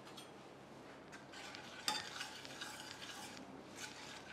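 Metal spoon stirring a thin, watery tempering in a stainless steel frying pan, with light scrapes and a small click against the pan about two seconds in, over a faint steady hiss from the heating liquid.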